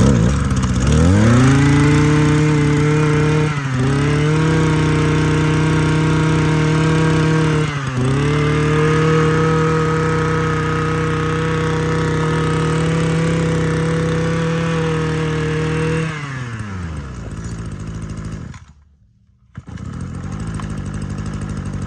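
Shindaiwa two-stroke brush cutter pull-started: it catches at once and runs at high revs, dipping briefly twice, then winds down and stops. After a moment it is pulled again and catches straight away, now a warm engine that needs no primer or choke, and runs steadily near the end.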